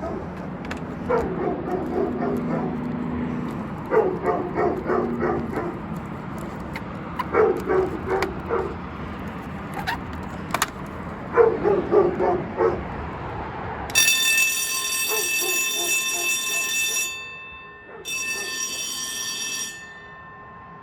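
Loud short bursts every three to four seconds. Then, about fourteen seconds in, the fire alarm bell of an old Monaco fire alarm system rings steadily for about three seconds, stops for a second, rings again for about a second and a half, and cuts off, leaving a faint ringing tail.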